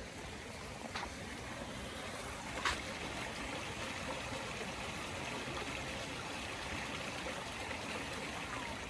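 Shallow garden stream running over stones, a steady rush of flowing water. Two brief sharp clicks cut through it, a faint one about a second in and a louder one near three seconds.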